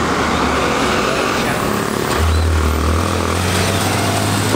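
Porsche 911 GT3 RS flat-six engine running at low revs as the car pulls slowly away, its low drone swelling louder about two seconds in.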